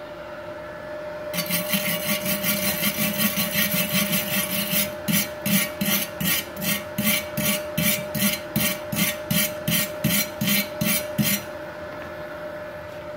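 Steel wire brush scrubbing a fresh gasless (flux-core) MIG weld on a thin hollow steel tube to clean off slag and spatter. It starts as fast continuous scrubbing, then changes to separate strokes about two a second, stopping shortly before the end.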